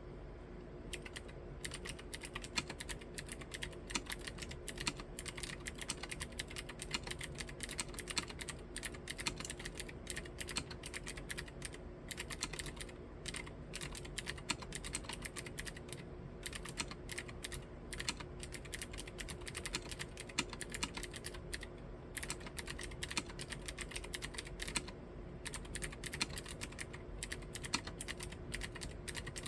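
Typing on a Novelkeys NK87 Entry tenkeyless mechanical keyboard with clicky Gateron Green switches: a fast, continuous run of key clicks that starts about a second in, broken by a few short pauses.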